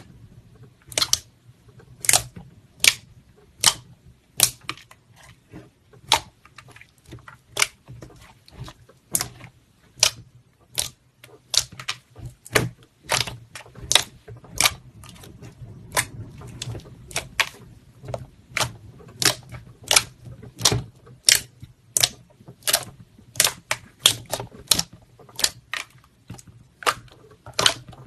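Slime being pressed and played with, giving sharp popping clicks as trapped air bursts, irregular at about one to two a second.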